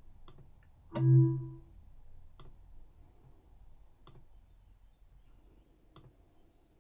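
Computer mouse clicks, single and spaced a second or two apart. About a second in there is a louder click with a short low tone after it.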